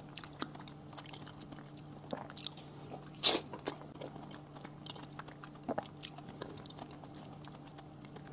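Close-miked chewing of a pink-and-white striped ice cream bar: wet mouth sounds with scattered crisp crunches and clicks, one louder crunch a few seconds in. A faint steady low hum runs underneath.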